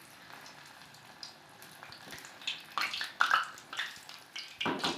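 Lentil fritters (parippu vada) frying in hot oil over a low flame: a soft sizzle with irregular crackling spurts that grow louder after about a second and a half, strongest around the middle and again near the end.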